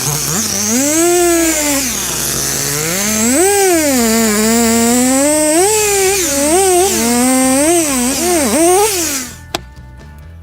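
Two-stroke chainsaw running, its engine pitch rising and falling over and over as the throttle is worked, then cutting off about nine seconds in.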